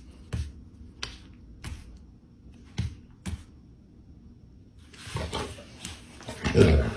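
Golden retriever smacking its lips about five times, sharp wet smacks in the first three and a half seconds, a reaction to the sour taste of a lemon wedge. Near the end comes a louder burst of scuffling as the dog rolls over on the wooden floor.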